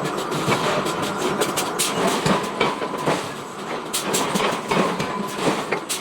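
Metal forging shop: a continuous mechanical din with irregular clanks and knocks of steel being worked, a few sharper strikes about four seconds in.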